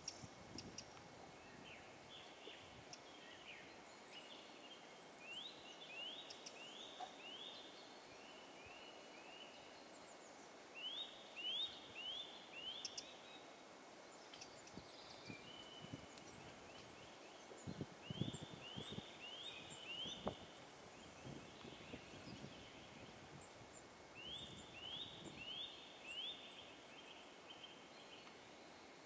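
A bird calling in short runs of about four quick, rising whistled notes, the runs repeated about every six seconds, faint over quiet woodland background with some soft rustling.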